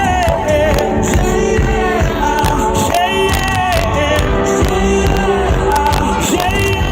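Live pop-rock band playing loudly, with drums and singing.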